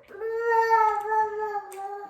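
A baby crying: one long wail, its pitch sagging slightly near the end.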